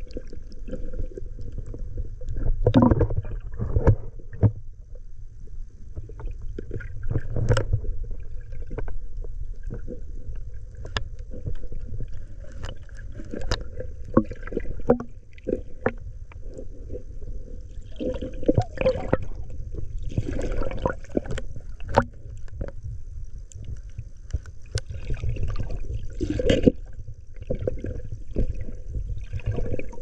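Muffled underwater sound from a camera held beneath the surface: a low rumble of moving water, with many scattered sharp clicks and knocks.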